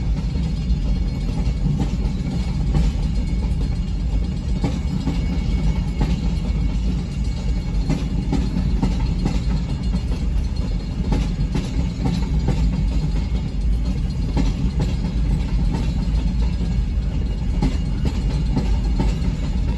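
Freight train of hopper cars and boxcars rolling steadily past through a grade crossing, heard from inside a car: a continuous low rumble with frequent clicks of the wheels over the rail joints.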